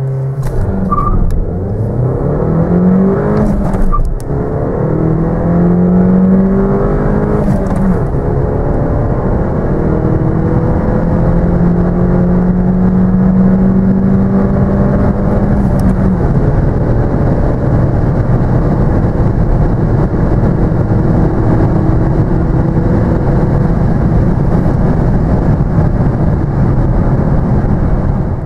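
2014 Mercedes-Benz A 200's 1.6-litre turbocharged inline-four at full throttle, accelerating from a standstill through a six-speed manual gearbox, heard from inside the cabin. Revs held high at the start, then the engine note climbs in each gear and drops at each upshift, about 4, 8 and 16 seconds in, followed by a long slow climb in the higher gear.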